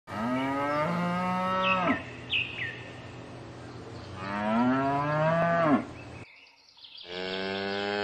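A cow mooing three times, each a long low call of one to two seconds; the third starts about seven seconds in. A few short chirps follow the first moo.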